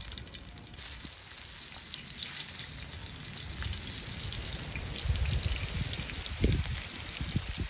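Hot oil sizzling and crackling in a wide pan as vegetables fry, the sizzle starting up about a second in. A few low thumps come in the second half.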